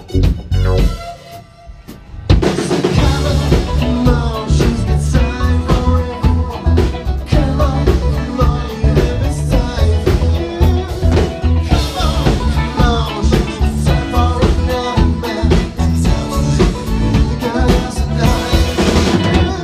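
Rock band playing live: electric guitar and drum kit. The playing breaks off briefly about a second in, then the full band crashes back in and carries on with a steady driving beat.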